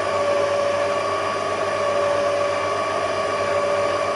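Electric stand mixer running at a constant speed: a steady motor whine over a hum.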